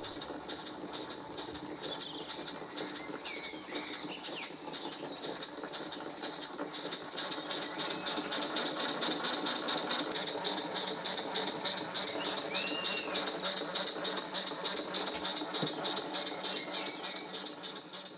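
Model mill engine running at speed with a rapid, regular ticking beat, driving a small ball governor through a round belt; the beat grows a little louder about seven seconds in.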